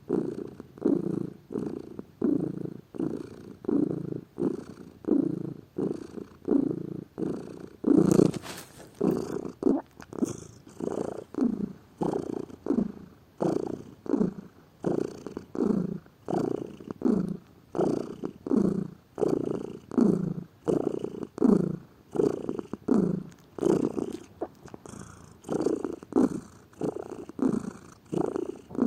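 Domestic cat purring steadily, the rumble swelling and fading in an even rhythm of about one and a half pulses a second as it breathes in and out. A brief louder noise cuts across the purr about eight seconds in.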